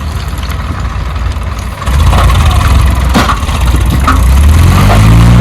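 Heavy diesel machinery engine running. It gets louder about two seconds in, with a few sharp knocks. Near the end it revs up a little, its note rising and then holding.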